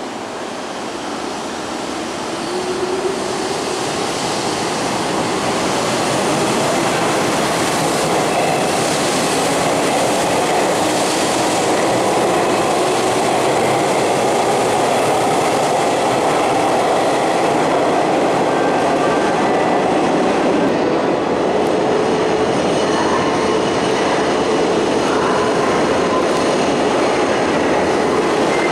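Hanshin 8000-series electric train running along the station platform. Its rumble of wheels and motors builds over the first few seconds, then holds steady and loud, with faint high squealing tones in the later part.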